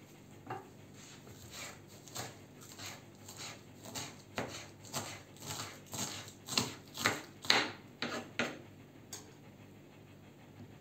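Kitchen knife chopping soft purple dead-nettle leaves on a wooden cutting board, about two sharp chops a second, growing louder and a little quicker, then stopping near the end.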